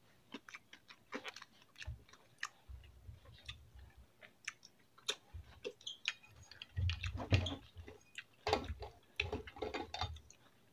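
Close-miked chewing and lip-smacking of a person eating pancit canton noodles and rice by hand: irregular wet clicks, busier and louder in the second half, with a few low thumps.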